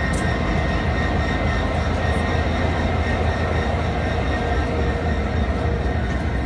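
Canadian Pacific diesel locomotive running close by: a steady low engine rumble with a faint thin whine above it.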